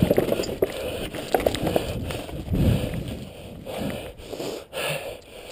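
Mountain bike riding over a wooden plank bridge and onto a dirt trail: tyres rumbling, with a run of quick knocks and rattles from the planks and bike in the first couple of seconds.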